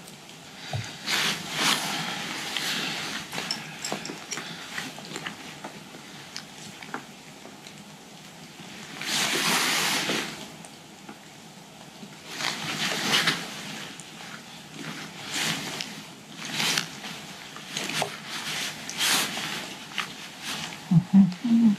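Rustling and scraping of a backpack's nylon hip belt and straps, in irregular bursts, as hands fit zip ties to repair the torn belt.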